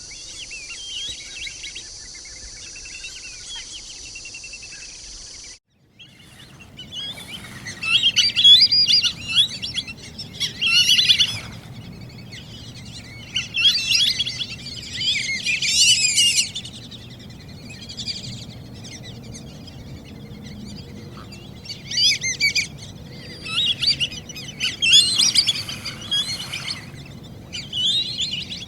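White-faced whistling ducks calling: high whistled calls in repeated bunches of a second or two, with short gaps between them. The first five seconds or so are a separate stretch with a steady high hiss behind fainter calls, which breaks off suddenly.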